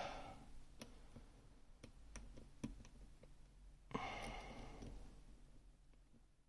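Faint scattered clicks of a pick working the sliders inside a Gerda Exxo lock, with a breathy sigh about four seconds in.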